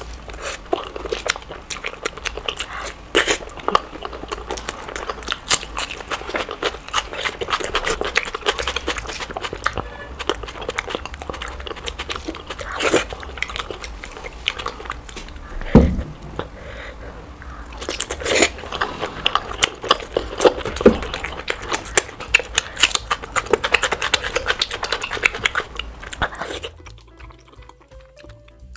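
Close-miked eating: wet chewing, lip smacking and crunching of rice and curried fish eaten by hand, with many sharp irregular clicks. It drops much quieter near the end.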